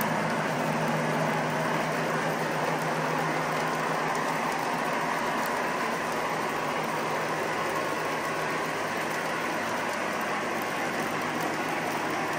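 O gauge model freight cars rolling over three-rail track: a steady rumble and clatter of wheels, with a low hum under it that fades about halfway through.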